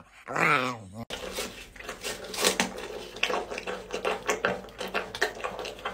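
A dog's drawn-out wavering groan, falling in pitch, in the first second. Then a capybara chewing apple: crisp, irregular crunching.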